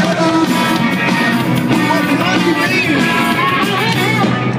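Live indie rock band playing loud, with electric guitar and drums, in an arena concert mix.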